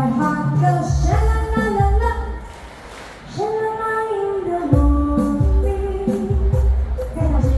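A woman singing into a microphone, backed by a live band with a steady beat. The music drops to a quieter passage a little over two seconds in and comes back up about a second later.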